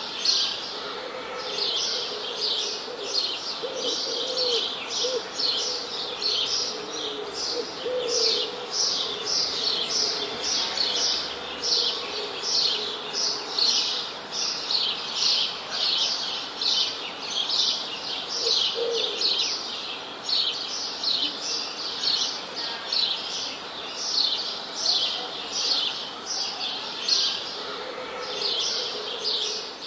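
Songbirds chirping without pause in a rapid string of short, high, falling chirps, about three a second, with a fainter, lower call underneath.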